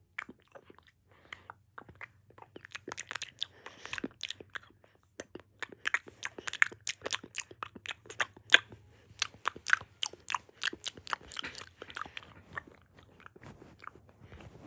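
A person making mouth sounds close to the microphone: quick, irregular clicks and smacks, thickest through the middle and thinning out near the end.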